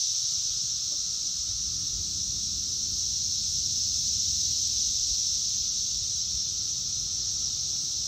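Chorus of periodical cicadas: a steady, high-pitched drone that holds unchanged throughout.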